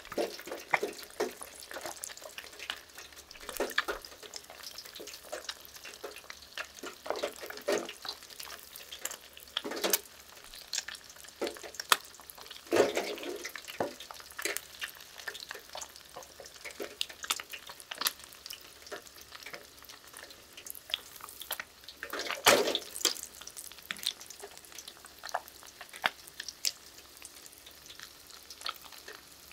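Ayu (sweetfish) deep-frying in hot oil: a continuous bubbling sizzle dotted with many sharp crackles and pops. There are two louder swells, about a third of the way through and again about three-quarters through.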